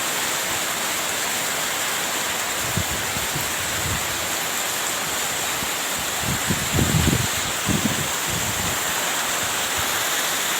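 Heavy rain pouring down in a steady, loud hiss during a storm, with a few short low rumbles about two-thirds of the way through.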